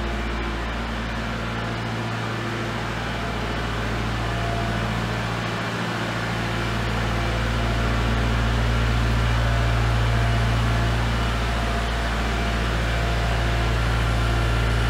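Kubota L4701 tractor's diesel engine running at low speed as the tractor drives in with a full 55-gallon drum on its pallet forks. It gets somewhat louder about halfway through as the tractor comes closer.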